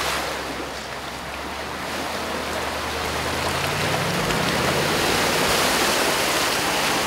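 Range Rover Sport wading through a shallow creek: water splashing and rushing against its bumper and wheels over the low, steady note of its supercharged V8, which climbs a little about halfway through. The splashing grows louder toward the end.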